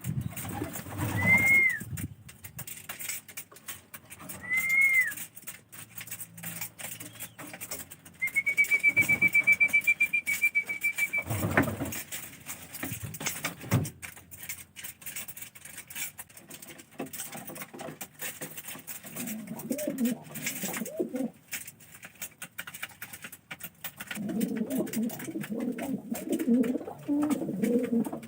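Domestic pigeons cooing at intervals. Two short high whistled notes early and one long, slightly wavering high whistle of about three seconds stand out above the cooing.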